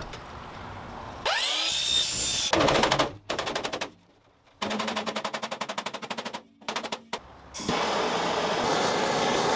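A quick series of workshop power-tool sounds on aluminum framing: a motor spinning up with a rising whine, then a fast, even rattling, then a steady noisy run near the end.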